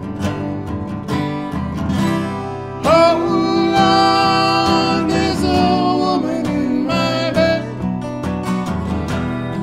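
Live acoustic country-rock song: three acoustic guitars strumming, joined about three seconds in by a male voice singing a held, wavering melody.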